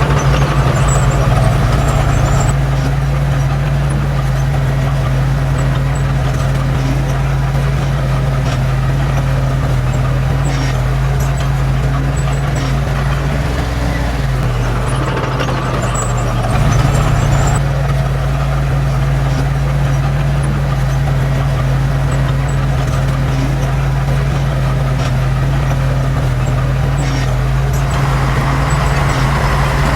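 Heavy diesel engine of earthmoving machinery running steadily at working revs, its deep hum dipping and changing for a few seconds around the middle before settling back.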